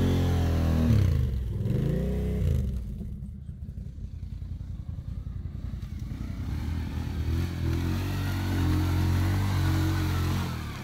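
ATV engines working through mud: two quick revs up and down near the start, then lower uneven running, and another quad's engine climbing and holding a steady higher note near the end.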